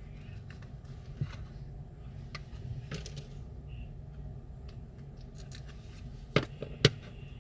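Small repair tools clicking and tapping against a smartphone's parts: scattered light clicks, then two sharper clicks about half a second apart near the end, over a steady low hum.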